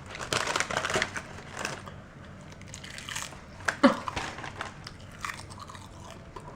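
Crunchy chewing of a spicy pickle bite close to the microphone, loudest in the first second, then lighter chews. A short vocal sound about four seconds in.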